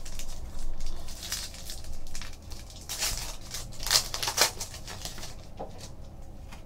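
Foil trading-card pack being torn open and its wrapper crinkled by hand: a run of short crackling and tearing sounds, loudest about three to four and a half seconds in.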